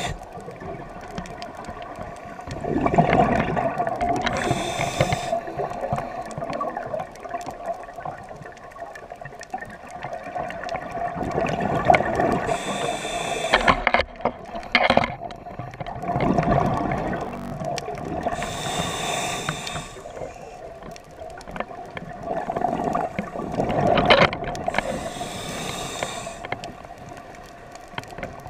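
Scuba regulator breathing heard underwater: a hissing inhalation and a gush of exhaled bubbles about every six to seven seconds, over a steady hum.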